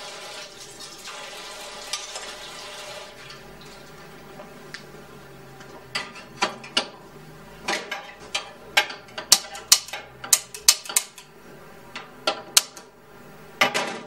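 A few seconds of hiss like running water, then from about six seconds in a quick run of sharp clinks and clatters, as of dishes and cutlery being handled, with one more clink near the end.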